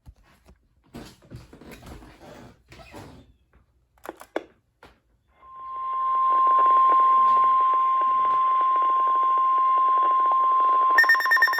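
NOAA Weather Radio warning alarm tone: a steady, loud single-pitch tone at about 1050 Hz over radio static, starting about five seconds in and announcing a new warning. Near the end a receiver's rapidly pulsing electronic alert beep joins it.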